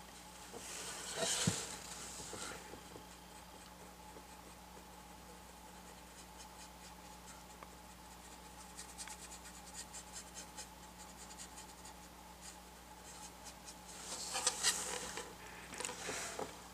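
A flat paintbrush scratching and scrubbing acrylic paint onto a painted board in short strokes, with faint quick ticks in the middle and louder rubbing about a second in and again near the end as the board is handled and turned.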